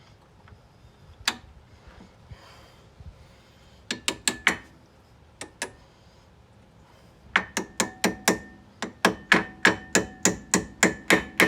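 Hammer tapping a brake-pad retaining pin home in a Brembo brake caliper, metal on metal with a ringing note. There is one tap, then a quick group of four a few seconds later, then a steady run of about fifteen taps at roughly four a second near the end.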